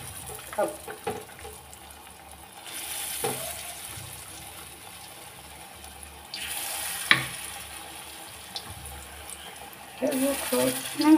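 Battered pumpkin slices shallow-frying in a little oil in a metal kadhai: a steady hissing sizzle that swells a few times, with a few light clicks.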